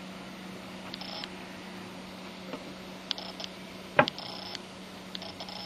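Scattered light clicks and taps at uneven intervals, with one louder knock about four seconds in, over a steady low hum.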